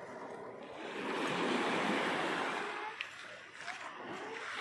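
Small waves washing onto the shore, swelling and falling back, with a brief click about three seconds in.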